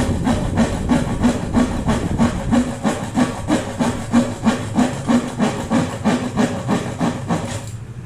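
Hand saw cutting plywood in quick, even back-and-forth strokes, about four a second, which stop just before the end.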